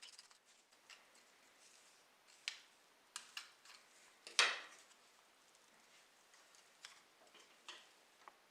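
Irregular light clicks and taps of small model car parts being handled, about eight in all, with one louder click about four and a half seconds in.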